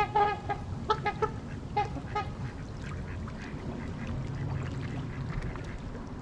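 Waterfowl honking: a quick flurry of short honking calls over the first two seconds or so, then only a low background rumble.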